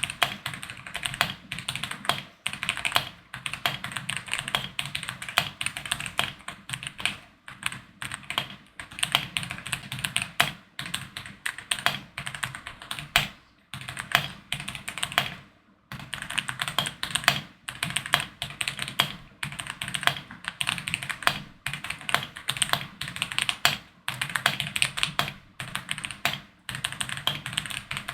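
Typing on an OM65 65% mechanical keyboard fitted with Boba U4T tactile switches and MOA keycaps: quick keystroke clicks in runs, broken by brief pauses every few seconds.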